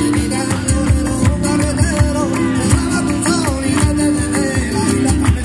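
Live flamenco alegrías: Spanish guitar playing with hand-drum beats and sharp percussive strikes from claps and the dancer's footwork. Some gliding melodic lines are heard in the middle.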